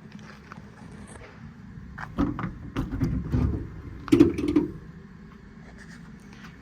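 Latch clicks and metal clunks of a truck service-body compartment door being unlatched and opened, in a burst of several knocks between about two and five seconds in, the loudest near the end of the burst.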